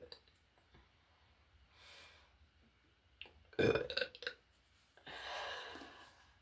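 A person burping up the gas from a litre of chugged sparkling water: one loud, broken burp about three and a half seconds in, followed by a longer breathy rush of air.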